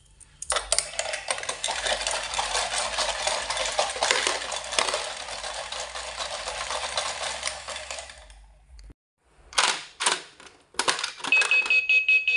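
Plastic clattering and metal clinking from Choken Bako coin-eating dog banks as the mechanical dogs dip their heads and swallow coins, then a few separate clacks. Near the end a toy vending machine starts a rapid electronic beeping on one pitch.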